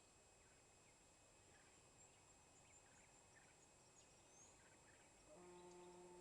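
Near silence: faint outdoor background with a few faint, scattered bird chirps. About five seconds in, a steady droning tone with one fixed pitch starts and holds.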